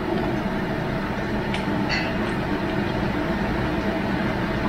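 Steady low rumbling noise, with two or three faint clinks about a second and a half to two seconds in.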